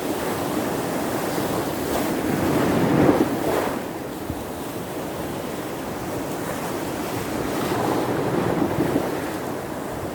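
Surf of the Baltic Sea in a small storm: waves breaking and washing ashore in a continuous rush, swelling louder about three seconds in and again near the end, with wind.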